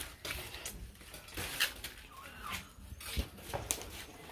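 Banana leaves rustling and scuffing as they are carried and handled, in scattered short rustles, with a short chirp about two seconds in.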